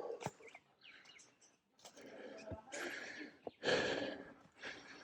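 A man breathing hard and heavily close to the microphone, a few loud breaths in the second half with a few faint clicks between: he is out of breath from the uphill hike.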